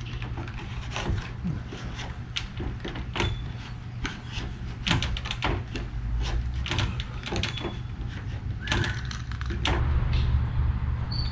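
Spline roller pressing rubber spline into an aluminium screen-frame channel, giving irregular clicks and rattles from the frame, over a steady low rumble.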